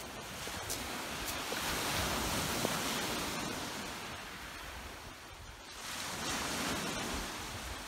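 Small lake waves washing onto a pebble beach, the surf swelling, easing off about five seconds in, then building again, with wind rumbling on the microphone.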